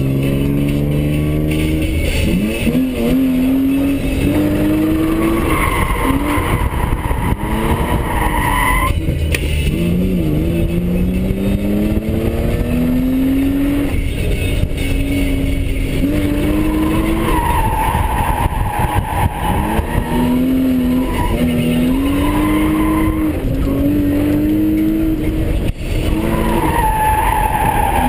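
BMW M3 engine heard from inside the cabin, revving hard, climbing and dropping in pitch again and again through the slides. The tires squeal in long drawn-out squeals several times as the car drifts.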